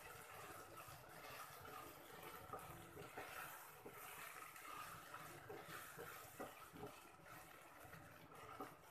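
Chopped vegetables frying in oil in a kadai, with a faint sizzle, and a wooden spatula scraping and tapping against the pan now and then as they are stirred.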